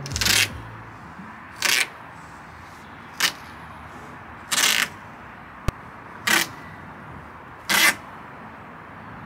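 Masking tape being laid along a car's plastic wheel-arch trim: six short crackling rips of tape, roughly every second and a half, with a single sharp click just before the middle.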